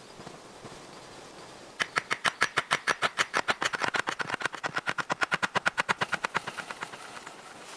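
Rapid, even series of sharp knocks, about nine a second, starting about two seconds in and dying away after about six seconds.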